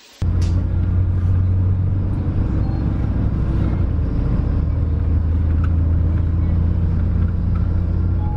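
Steady low rumble of a city bus's engine and road noise heard from inside the passenger cabin while riding through traffic.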